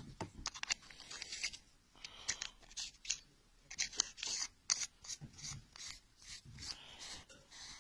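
Threaded end cap of a Coast HP10R metal torch being screwed onto the body by hand: an irregular run of short scraping rasps from the threads, mixed with light handling clicks.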